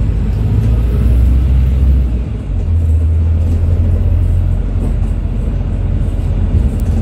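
Cabin sound of a Volvo B5LH hybrid double-decker bus on the move: a steady low drone and rumble from the drivetrain and road, which dips briefly about two and a half seconds in.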